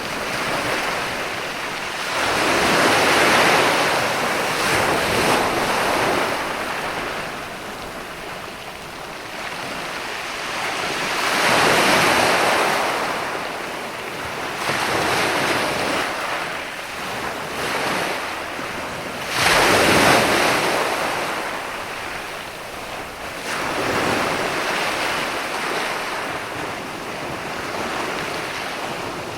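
Ocean surf: waves swell in and wash back four times. The wave about two-thirds of the way through comes in most abruptly and is the loudest.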